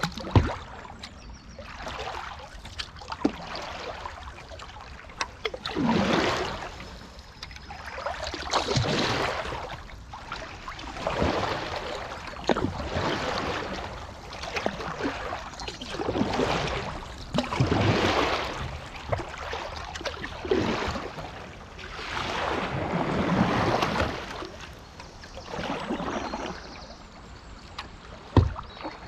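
Kayak paddle blades dipping and pulling through river water: a swell of splashing every two to three seconds with each stroke, over the steady sound of the flowing river. A couple of sharp knocks come near the start and near the end.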